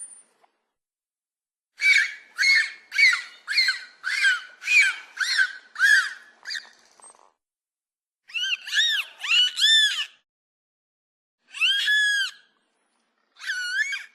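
Infant Ornitholestes dinosaur sound effect: a quick run of about ten short, high chirps, two a second, then after a pause a few longer squealing calls that rise and fall in pitch.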